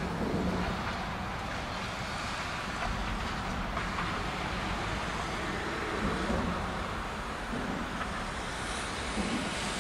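Steady outdoor background noise: wind rumbling on the microphone over a distant hum of traffic, with no distinct events.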